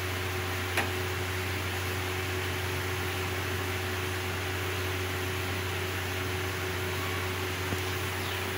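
Steady mechanical hum with an even hiss, like a kitchen fan running, while oil heats in the pan; one light click about a second in.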